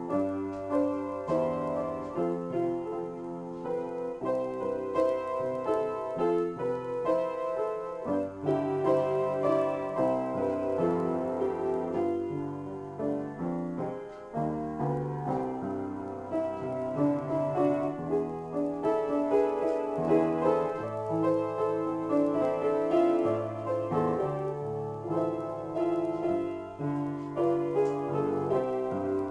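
Upright piano played solo in an improvised piece, bass notes changing every second or two under a continuous melody.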